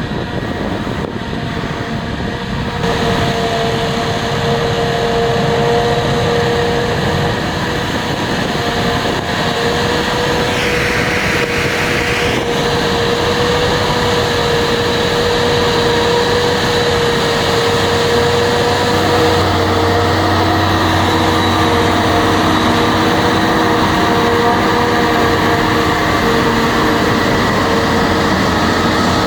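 Heavy farm machinery at work: diesel engines running steadily under load with a continuous mechanical whine. The mix shifts about three seconds in and again about two-thirds of the way through.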